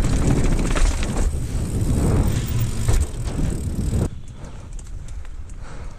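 Dartmoor 26player dirt-jump bike ridden down concrete steps, with loud rumbling ride noise on the camera microphone and sharp knocks as it goes over the steps. About four seconds in the sound cuts abruptly to quieter tyre rolling on a dirt trail with light clicks.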